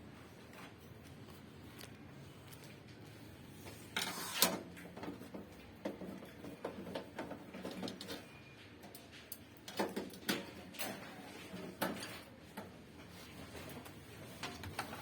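Scattered knocks, clicks and rattles of a gas heater's casing and parts being handled as it is taken apart, starting about four seconds in; the first knock is the loudest.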